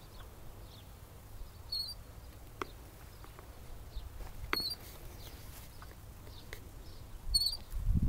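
Playground swing squeaking faintly as it swings: a short high squeak three times, a few seconds apart in time with the swing, with a few light clicks.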